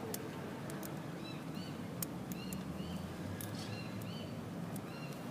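A small bird chirping in the background, short arched notes in twos and threes repeating about every second, over a steady outdoor hum. A few faint sharp clicks.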